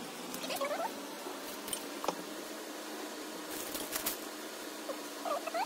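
Thin white plastic wardrobe panels being handled and laid out: scattered light knocks and clicks, strongest about four seconds in, with a few short squeaks of plastic rubbing on plastic.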